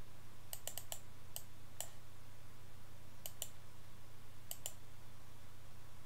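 Computer mouse clicking several times, some clicks in quick pairs, over a faint steady low hum.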